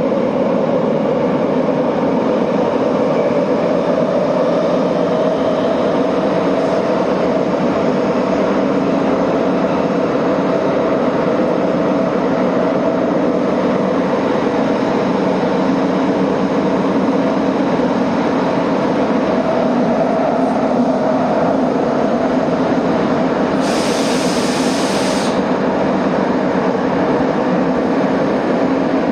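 Electric commuter train running at speed through a subway tunnel: a steady, loud rumble of wheels and car body. Near the end there is a short burst of hissing lasting about a second and a half.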